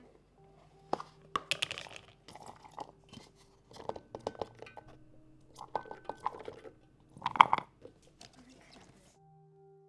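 Irregular crunches and clicks of food preparation, loudest about seven seconds in, over soft background music.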